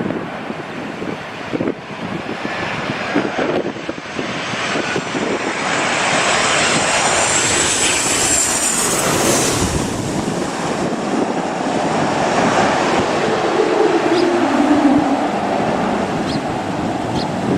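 Landing airplane's engines passing close by: a rushing roar that swells to its loudest about halfway through, with a high whine bending up and then down at the peak, then eases off as a lower tone slides down.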